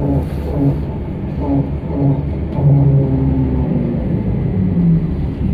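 Steady low rumble inside a moving trolleybus, with muffled voices of people talking.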